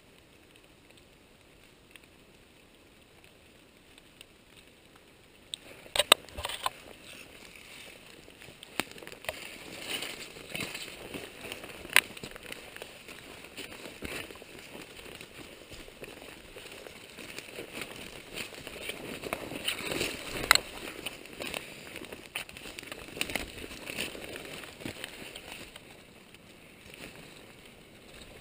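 Footsteps pushing through forest undergrowth, with ferns and brush rustling and twigs snapping underfoot. It starts about five seconds in and has a few sharp cracks, the loudest about 6, 12 and 20 seconds in.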